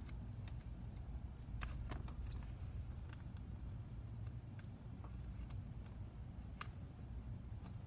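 Scattered light clicks and taps of carbon-fibre drone frame plates being handled and pressed together by hand, over a low steady hum.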